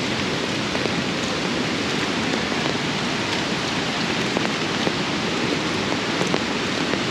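Steady rain falling, with a few separate drops ticking close by.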